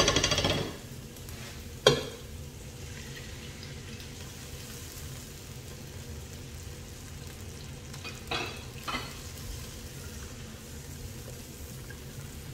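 Chopped onion frying in hot oil in a pot, a steady sizzle, while chopped tomatoes are tipped in and stirred with a wooden spoon. A short clatter comes at the start, a sharp knock about two seconds in, and two softer knocks around eight and nine seconds, as utensils hit the pot.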